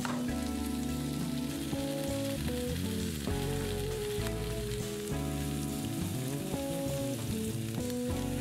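Sliced vegetables sizzling steadily as they stir-fry in a frying pan, with background music playing over it.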